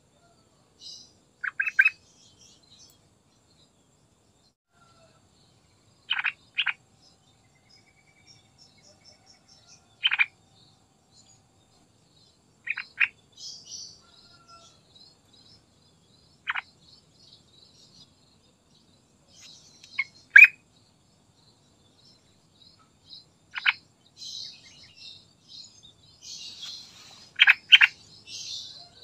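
Yellow-vented bulbul giving short, sharp call notes every few seconds, some single and some in quick pairs, with fainter high twittering in between.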